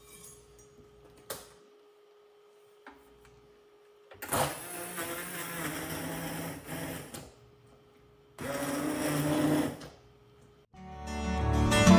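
Handheld immersion (stick) blender running in a slow cooker crock of soft cooked apples, puréeing them into applesauce: one burst of about three seconds, a short pause, then a second burst of about a second and a half. Acoustic guitar music fades in near the end and grows loud.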